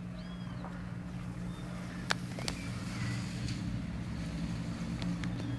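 A pet's steady, low, continuous rumble from its throat, even in pitch and level throughout. Two sharp clicks come a little past two seconds in.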